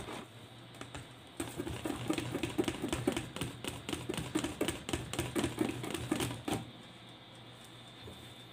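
Wire whisk beating flour into a thick batter in a stainless steel bowl: rapid clicking of the wires against the metal, several strokes a second, starting about a second and a half in and stopping about two-thirds of the way through. A faint steady hum lies underneath.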